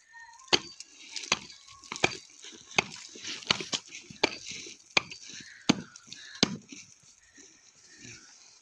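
An axe chopping into thick pond ice, about ten sharp blows at a steady pace, roughly one every 0.7 seconds, stopping about two-thirds of the way through.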